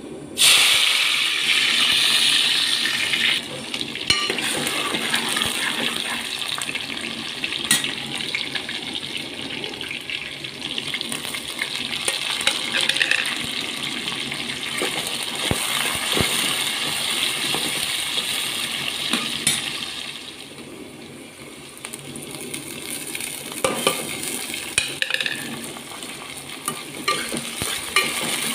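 Chopped onions dropped into hot oil in a metal pan, sizzling loudly for the first few seconds, then frying steadily with the odd click of the stirring spoon against the pan. The frying dies down briefly about two-thirds of the way through, then picks up again.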